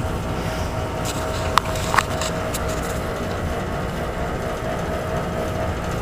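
Steady low rumble and hum of boiler-room machinery running, with two short clicks about a second and a half and two seconds in.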